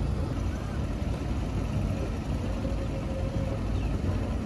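A steady low rumble, like an engine running nearby, unchanging throughout.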